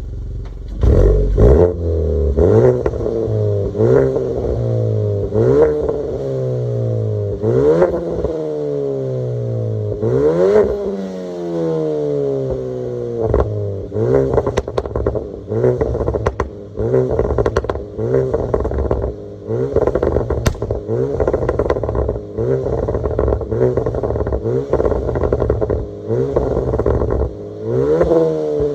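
Opel Astra K 1.4 turbo four-cylinder with a stage 2 tune and a straight-piped exhaust, revved up and let fall again and again. Sharp pops and bangs crackle from the exhaust as the revs drop.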